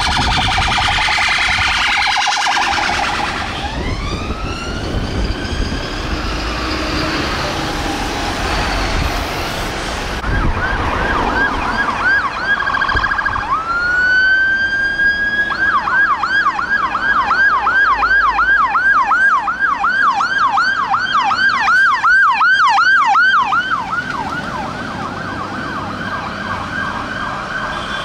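Emergency vehicle sirens going past: a police car's siren at first, then a fire engine's siren rising in a wail and switching to a rapid yelp of about two and a half sweeps a second. The yelp is loudest midway through and fades as the engine moves away.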